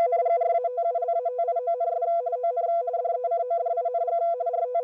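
Radioteletype (RTTY) signal: two steady tones switching rapidly back and forth (frequency-shift keying), sending a text phrase as teleprinter code.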